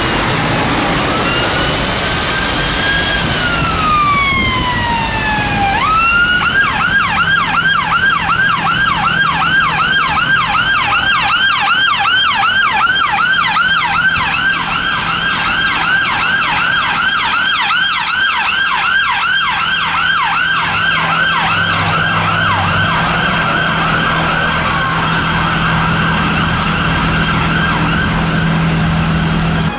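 Ambulance siren on an emergency run. It starts as a slow wail that rises and falls, then about six seconds in it switches to a fast yelp, sweeping up several times a second until the end.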